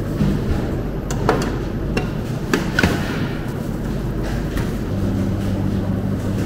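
Several metal clicks and knocks as a flat beater and a steel bowl are fitted to a stand mixer. About five seconds in, the mixer's motor starts and runs with a steady hum, beating cooked meat in the bowl.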